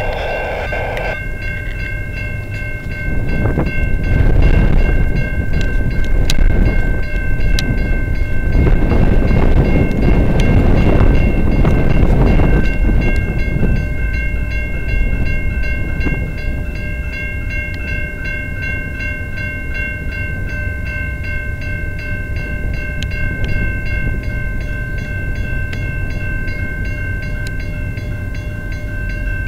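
Level-crossing warning bell ringing steadily as a train approaches. A louder rush of noise runs from about three to thirteen seconds in.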